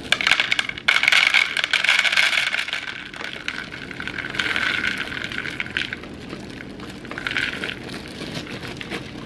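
Dry dog kibble poured from a plastic bag into a plastic bowl, the pellets rattling and clattering against the bowl, with the bag crinkling. The pouring is heaviest for the first few seconds and comes back in shorter spells later.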